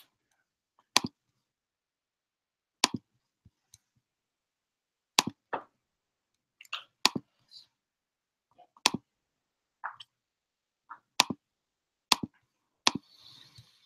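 Irregular sharp clicks and taps, roughly one every second, some in quick pairs, from a laptop's keyboard and trackpad being worked. A faint soft hiss comes near the end.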